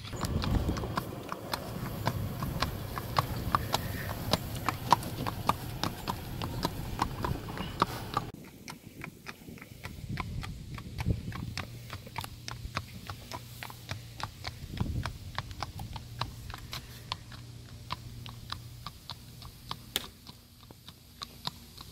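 Shod hooves of an Oldenburg warmblood mare clip-clopping at a walk on an asphalt path: a steady, even run of hoof strikes.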